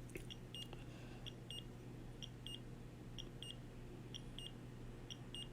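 Faint short, high electronic beeps from a handheld measuring instrument, repeating about once a second in a single-then-double pattern.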